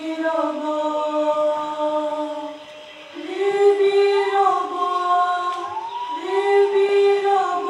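Several voices singing without accompaniment in long held notes. A dip comes a little under three seconds in, then a new phrase starts on a higher note, with gliding pitch changes.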